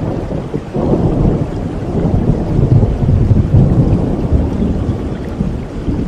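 Rolling thunder rumbling over steady rain, swelling about a second in and easing off toward the end.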